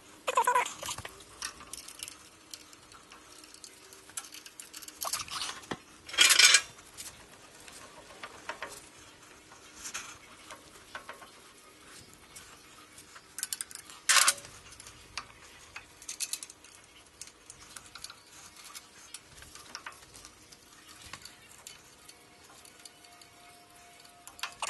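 Hand tools and metal parts clinking and rattling on a lathe's bed and chip tray during assembly work, with two louder metal clanks, about six seconds in and about fourteen seconds in.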